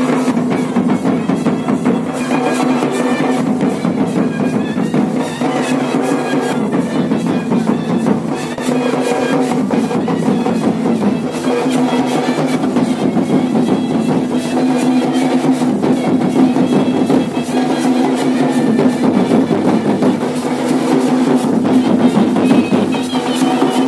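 Nagpuri folk dance music with a steady drum beat, a low pattern repeating every second and a half or so, and a wavering melody line over it.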